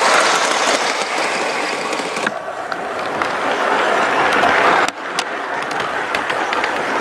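Large-scale model train freight cars rolling along the track, a steady rushing rumble of wheels with scattered light clicks over the rail joints. The sound changes abruptly twice.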